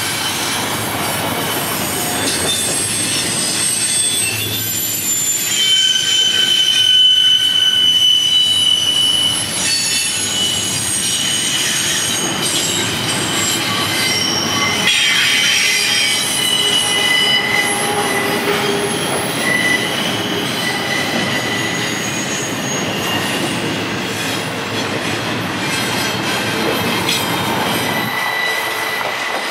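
Freight cars of a long intermodal train rolling past at a steady level, the wheel flanges squealing in high, shifting tones as they grind through the curve, with some clickety-clack over the rail joints.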